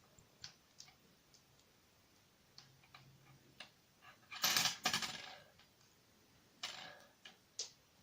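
Small metal clicks from the pin stack of a Kryptonite padlock core as the pins are dropped out, then a loud clatter of small lock pins falling onto a hard surface about four and a half seconds in, with a couple more clicks near the end.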